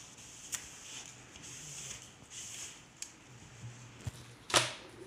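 A cloth wiping over holographic rear-projection film on a clear panel, a hissy rub in several strokes with a couple of light clicks. Near the end comes a small thump and then a sharp knock, the loudest sound.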